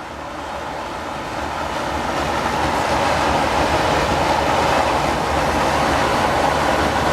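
A train passing: a steady rushing, rumbling noise that swells over the first few seconds, then holds.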